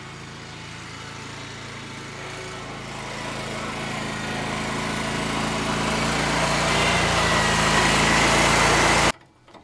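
Lawn mower engine running, growing steadily louder over about nine seconds, then stopping abruptly near the end.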